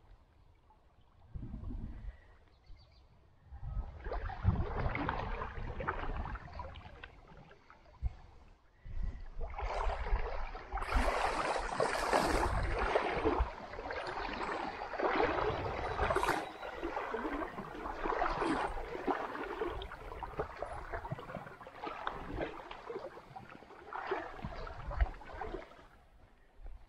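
Stream water splashing and gurgling in uneven surges, loudest a little before the middle, with low bumps and rumble underneath.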